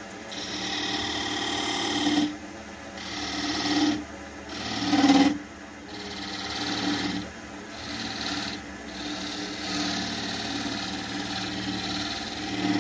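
Wood lathe spinning a small wooden plug while a turning chisel takes light cuts across it, a scraping, rasping sound in short passes of a second or so, with the lathe's steady hum between them. These are careful sizing cuts, bringing the plug down to fit a 53 mm hole.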